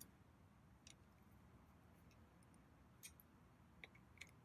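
Near silence with a few faint, scattered clicks: a hex key tightening the mechanical disc caliper's mounting screws.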